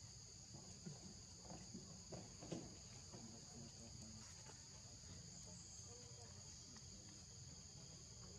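Faint steady insect chorus, a high drone on two pitches, with a few faint brief sounds in the first three seconds.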